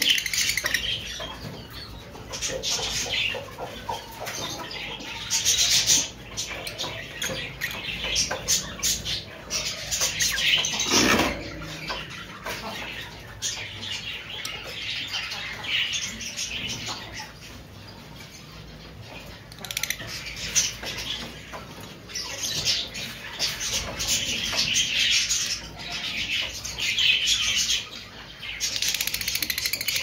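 Lovebirds chattering in shrill, high chirps that come in bursts, with wings fluttering as they hop between perches.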